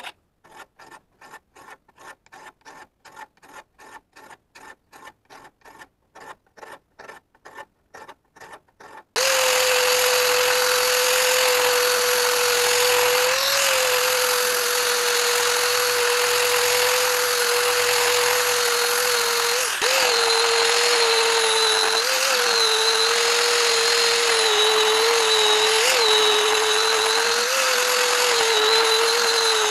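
A hand file scraping back and forth on old iron, about three strokes a second. About nine seconds in, an angle grinder starts and runs steadily with an abrasive disc on the metal, its pitch dipping briefly now and then as it is pressed into the work.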